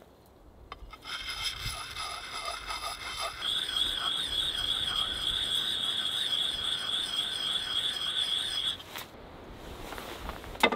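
Puck sharpening stone worked against a steel axe bit: a few rasping strokes, then a steady high-pitched squeal that wavers about four times a second for some five seconds before stopping suddenly. A single sharp knock near the end.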